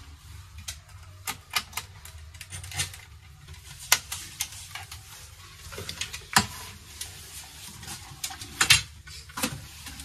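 Irregular small clicks and taps of a screwdriver and small parts against the plastic base of a Lenovo G50-70 laptop during reassembly, with a few louder knocks about four, six and nine seconds in.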